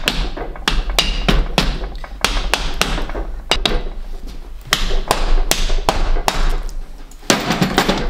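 Rapid mallet blows on the cast-iron cylinders of a 1962 Harley-Davidson Ironhead Sportster engine, about three a second, knocking the worn cylinders loose from the crankcase so they can be pulled off.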